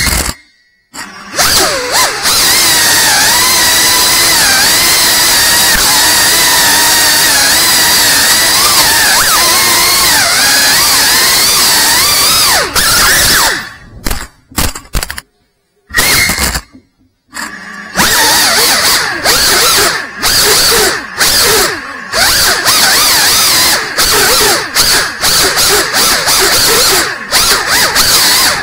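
FPV drone's electric motors and propellers whining, the pitch wavering up and down with the throttle. The sound cuts out abruptly to near silence several times, the longest gap around the middle.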